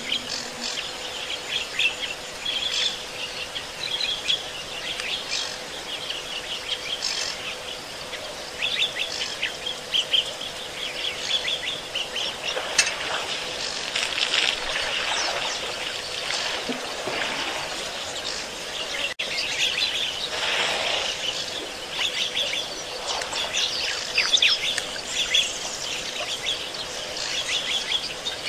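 Many birds chirping and calling over one another in a dense, continuous chorus of short, high calls, with a faint steady hum underneath.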